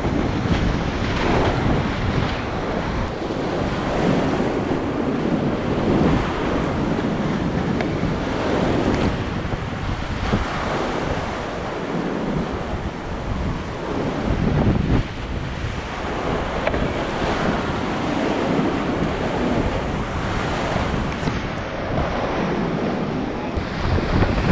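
Whitewater rapids rushing loudly around a kayak, with water splashing over the bow and against the camera microphone, the roar swelling and easing every second or two.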